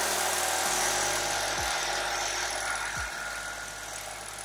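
Background music with deep, sustained bass notes and a few deep hits that fall in pitch, over a steady hiss.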